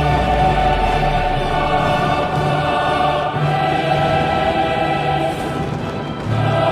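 Choral music: a choir singing long held chords over a low bass line, with a fuller swell about six seconds in.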